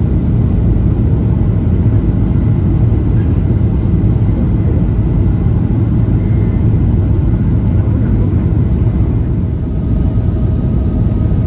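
Steady low rumble inside the cabin of a Boeing 737-800 on approach, made by airflow and the CFM56 engines with the flaps extended. A faint engine whine comes in near the end.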